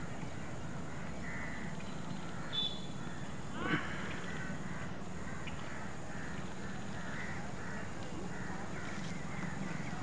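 Birds calling over a steady background hiss and low hum, with short calls scattered throughout and one louder harsh call a little under four seconds in.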